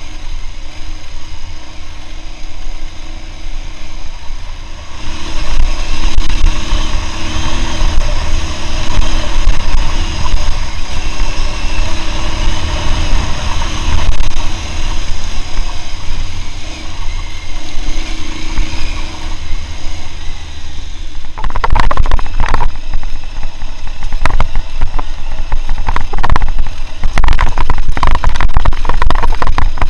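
Aprilia Tuareg 660's parallel-twin engine running at low speed over a rough dirt lane, over a heavy low rumble. It grows louder about five seconds in, and from about two-thirds of the way through a series of sharp knocks and rattles joins it.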